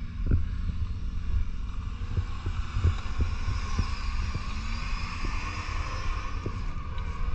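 A 4x4 driving slowly off-road: steady engine and drivetrain rumble with frequent knocks and thumps from the rough ground. A higher whine swells and fades in the middle.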